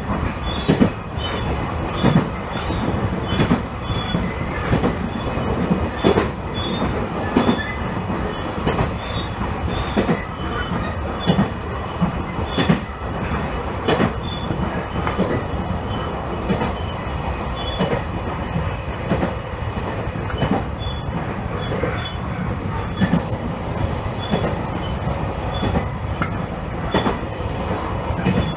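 Two-car electric train running along the line: a steady rumble of the wheels, with sharp knocks every second or two as they cross rail joints and a faint high wheel squeal that comes and goes.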